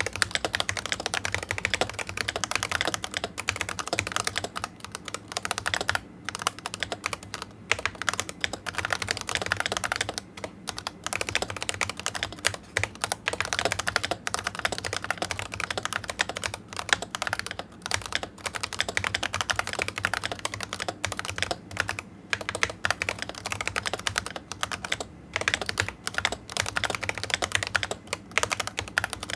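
Continuous fast typing on a Razer Huntsman V2 Analog keyboard with Razer analog optical switches: a dense, quick clatter of keystrokes broken only by short pauses.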